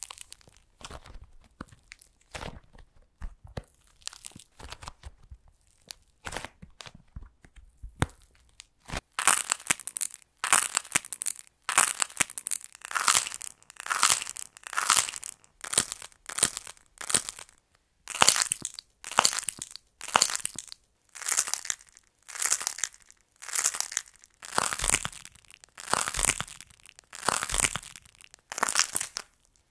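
Hands cracking and crushing dried air-dry clay shaped like macarons and cake slices: the dry outer crust crackles and crunches as it breaks. For the first nine seconds the crackling is softer and scattered as a squeezed lump of already-broken clay is worked. After that it comes in loud crunchy bursts, one every second or so.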